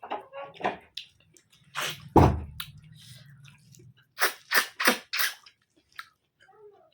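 Close-up eating noises: sharp mouth smacks and crunching chews as a mouthful is eaten, with a heavier thump about two seconds in and a quick run of about five smacks near the middle.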